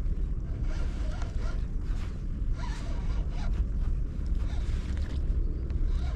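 Wind buffeting the microphone, a dense low rumble, with scattered short scratchy sounds over it.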